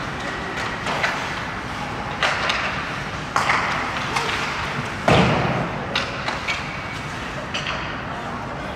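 Ice hockey play in an arena: scattered sharp knocks of sticks and puck, the loudest about five seconds in, over a steady murmur of spectators talking.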